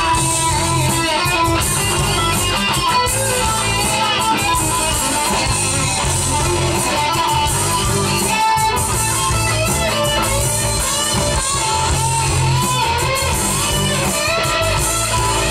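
A live band playing an instrumental passage of a pop-rock song through a PA, with electric guitar to the fore over bass and drums.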